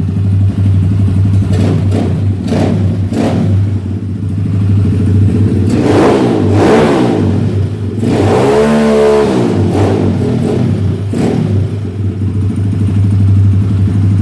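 Zongshen 250cc dirt bike engine idling without choke on a freshly rebuilt top end with a new piston, blipped several times, with a longer rev about eight seconds in that rises and falls in pitch.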